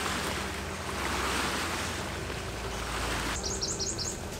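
Steady rushing of wind across the microphone and through the trees, with a low rumble underneath. Near the end there is a quick run of high chirps.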